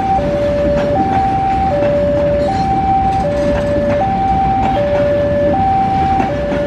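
Railway level-crossing warning alarm sounding a steady two-tone signal, high then low, about one full cycle every second and a half, over the loud rolling rumble of fuel tank wagons passing over the crossing.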